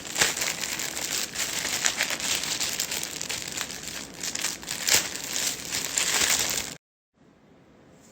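Packaging being handled and crinkled, a dense crackling rustle with sharp peaks. It stops abruptly near the end, leaving faint room tone.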